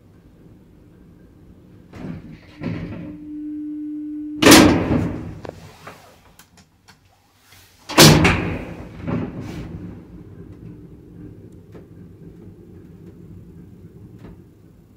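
Doors of an old 1990 ZREMB passenger lift: a few clicks and a brief steady hum, then two loud door bangs about three and a half seconds apart, each ringing on briefly. A low steady hum follows.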